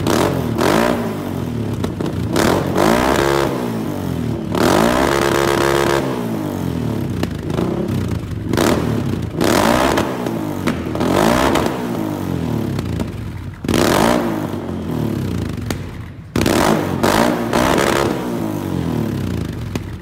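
Can-Am Outlander 800R's V-twin engine, stationary, revved repeatedly: about a dozen short throttle blips that rise and fall back to idle, one held for over a second about five seconds in.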